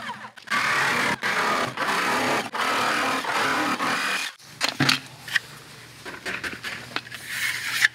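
Jigsaw cutting through the plastic wall of a 5-gallon bucket, running in several spurts with short pauses for about four seconds. Then the saw stops and a few sharp knocks follow as the bucket is handled.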